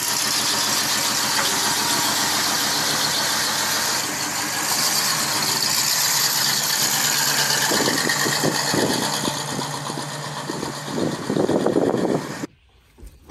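A 1978 Chevy Nova's 305 V8 running as the car drives off, with a steady rush of noise over the engine. The sound turns uneven and pulsing in the last few seconds, then cuts off suddenly near the end.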